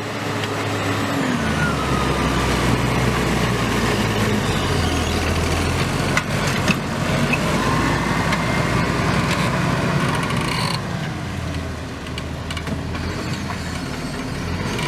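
Same Diamond 265 tractor's Deutz 1013 diesel engine working under load while pulling a plough, its pitch shifting a few times. A couple of sharp knocks about six seconds in.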